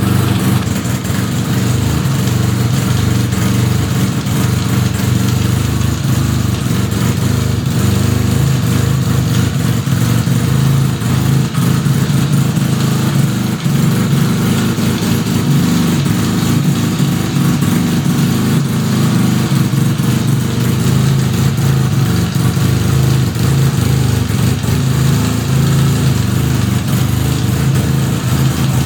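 Suzuki RE5's single-rotor Wankel rotary engine running steadily, with the abnormal noise that the owner traces to the transmission after a full restoration.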